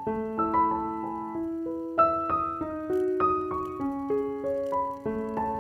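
Background piano music: a gentle melody of single notes, a new one every half second or so, over lower accompanying notes.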